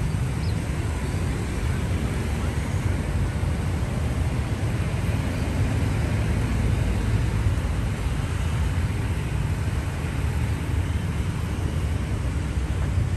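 Steady low rumble of distant city traffic, with an even outdoor hiss over it.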